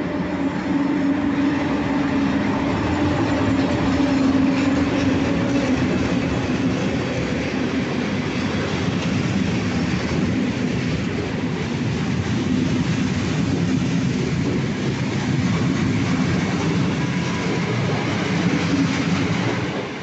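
An electric-locomotive-hauled passenger train passing along a station platform at speed: a steady hum from the locomotive in the first few seconds, then the continuous rumble and wheel clatter of the coaches going by.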